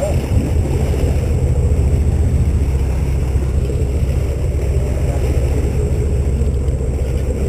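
Sportfishing boat's engine running steadily as a low rumble, with water rushing along the hull.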